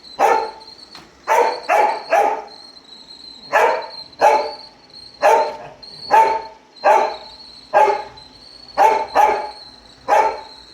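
A dog barking repeatedly at a running robot vacuum cleaner, about a dozen sharp barks, often two or three close together. The robot vacuum's steady high whine runs underneath.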